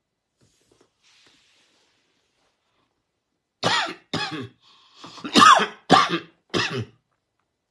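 A man coughing about five times in quick succession, the middle cough the longest and loudest, after a few seconds of quiet.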